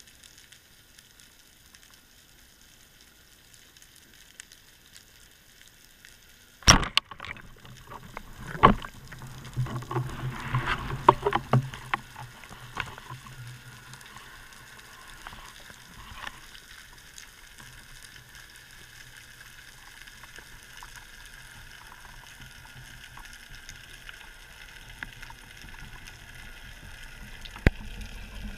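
Underwater, a speargun fires with a sharp crack about seven seconds in. A second sharp knock follows two seconds later, then a few seconds of rattling knocks. A steady underwater hiss runs beneath, with one more single click near the end.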